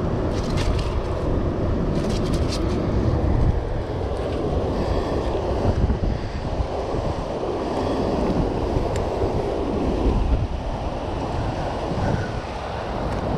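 Steady rush of churning tailwater below a hydroelectric dam with its generators discharging, mixed with wind buffeting the microphone. A few sharp clicks sound about one and two and a half seconds in.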